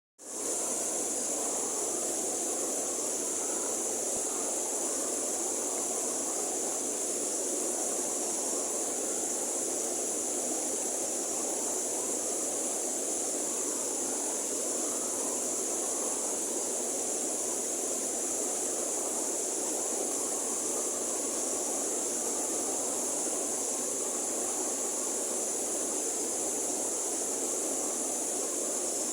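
River water flowing steadily, a continuous rushing with a steady high hiss above it, fading in at the very start.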